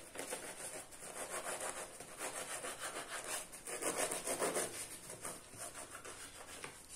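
A knife sawing through a round of matlouh, an Algerian pan-cooked flour flatbread with a toasted crust. It makes quick, repeated back-and-forth scraping strokes across the bread.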